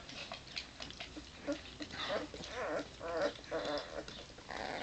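Two-week-old Weimaraner puppies whimpering and squeaking in their sleep. There are several short, wavering whines in the second half, among soft grunts and small clicks.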